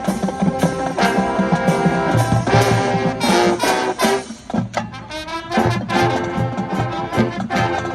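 High school marching band playing a loud brass-led tune, with regular sharp drumline hits under the horns.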